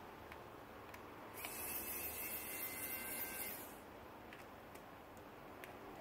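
Electric precision screwdriver running for about two seconds, a high whirring whine that starts and stops abruptly, most likely driving out one of the pentalobe screws at the iPhone 6's bottom edge. A few faint clicks of handling come before and after it.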